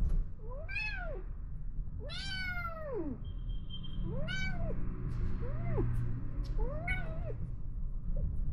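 Kitten meowing five times, each call rising and then falling in pitch, the second one the longest, while an adult cat pins it down in play-fighting.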